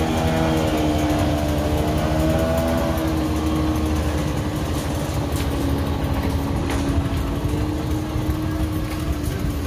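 Motorboat engine running steadily over a low rumble, its pitch sliding slowly lower during the first few seconds as a boat passes.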